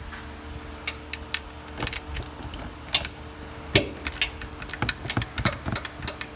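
Scattered metallic clicks and clinks of hand tools as a socket wrench is worked onto a hard-to-reach oil pan bolt, irregular and starting about a second in.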